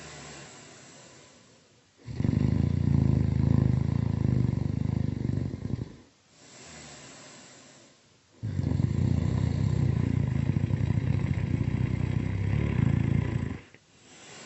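Really loud snoring: two long, low, rough snores of about four to five seconds each, with a softer airy breath between them.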